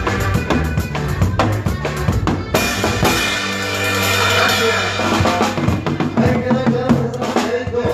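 Norteño conjunto playing: a steady drum-kit beat with bass drum and snare, a bass line, and sustained melody notes above.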